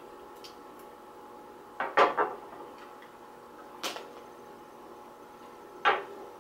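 Plastic packaging tray being handled and hot-coated peanuts tipped out onto a paper plate. A quick cluster of clicks and rattles comes about two seconds in, then single sharp clicks near four and six seconds, over a faint steady hum.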